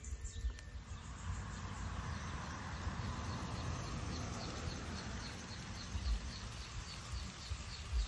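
Outdoor ambience with a small creature chirping in a quick, even rhythm, about three high chirps a second, from a few seconds in. Low rumbling and a few soft thumps lie underneath.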